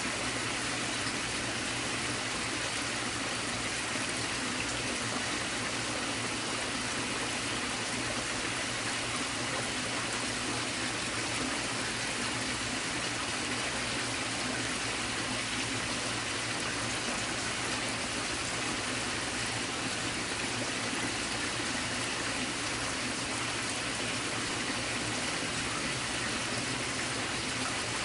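A creek running: a steady, unchanging rush of water.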